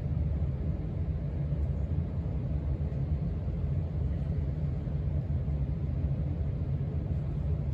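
1989 Casablanca Four Seasons five-blade ceiling fan running at high speed: a steady low rumble of the air it moves.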